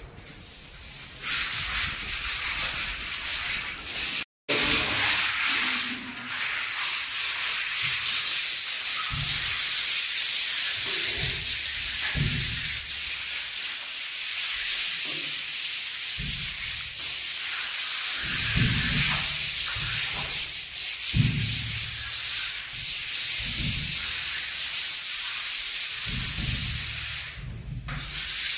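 Sandpaper rubbed by hand over dried wall putty on the walls and ceiling, a steady scratchy hiss, with occasional dull bumps. The sound cuts out briefly about four seconds in.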